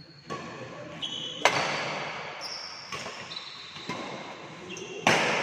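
Badminton play with a Li-Ning Windstorm 72 racket: two sharp racket hits on the shuttlecock, about a second and a half in and again near the end, with shoes squeaking on the court floor between them.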